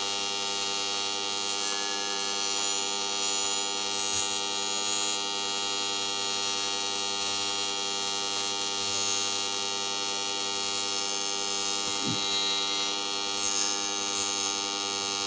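TIG welding arc on an aluminum plate, buzzing steadily as the weld runs.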